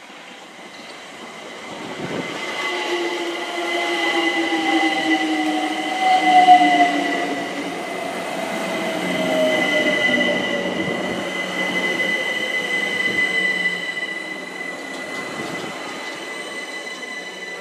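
London Overground Class 378 electric multiple unit running into the platform and braking to a stop. Its motor whine falls slowly in pitch as it slows, over a steady high-pitched tone, and is loudest as the front cars pass, about six seconds in.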